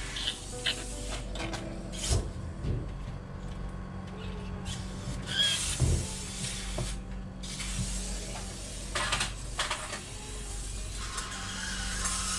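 Handling sounds as a newborn puppy is rubbed with gauze on an absorbent pad: scattered short rustles and knocks over a steady low hum.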